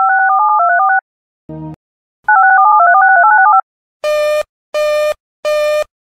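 Synthetic electronic alert tones from an emergency-alert relay stream: two short runs of rapidly stepping two-note beeps, a brief low buzz between them, then a series of evenly spaced harsh beeps about 0.7 seconds apart starting about four seconds in.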